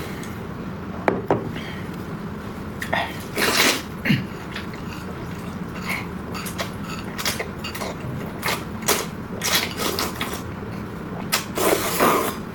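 Close-up eating sounds from rice noodles: quick wet smacks and clicks of chewing, with a longer slurp about three seconds in and another near the end.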